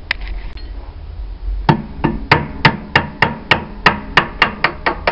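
Hammer tapping a metal bar set on a ring spanner over a washing-machine damper peg, to drive the peg out: one sharp click at the start, then from about two seconds in a steady run of about a dozen ringing metal blows, roughly three a second.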